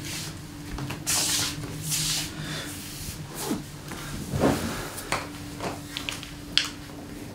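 Clothes rustling and footsteps as a person moves in and drops into an upholstered armchair, with a dull thump about four and a half seconds in, then a few sharp light clicks, over a faint steady low hum.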